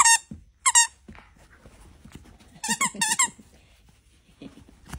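Plush dog toy's squeaker squeaking as the toy is squeezed: once at the start, again just under a second in, then a quick pair about two and a half to three seconds in. Each squeak is short, shrill and steady in pitch.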